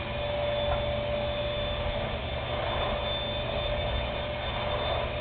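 Vacuum cleaner motor running steadily: an even rushing noise with a steady whine over a low hum.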